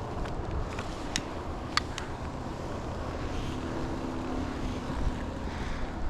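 Low rumble of wind and body movement on a chest-mounted action camera's microphone, with a few sharp clicks about one and two seconds in.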